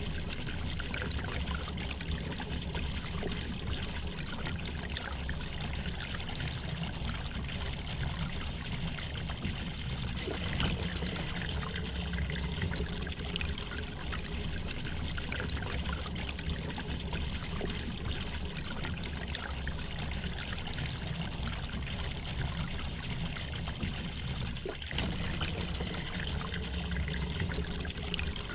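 River water flowing gently over stones, a steady trickling and gurgling.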